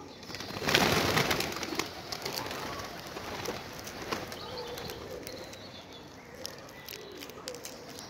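Feral pigeons feeding in a flock: a loud flurry of flapping wings about a second in as several take off, then scattered wing claps and a few low coos.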